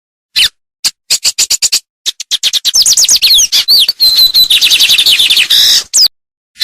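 A songbird singing a fast, varied song: bursts of sharp rapid chips, then a run of quick down-slurred whistled notes and a short held high note about four seconds in.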